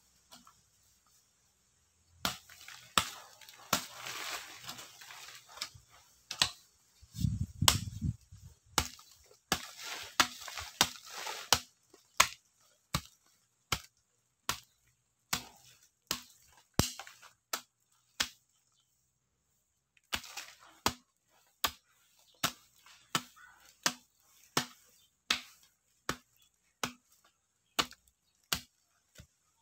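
Hoe blade chopping into soil: repeated sharp strikes, mixed with scraping of loose earth in the first half, then a steady run of about one and a half strikes a second, with brief pauses between bouts.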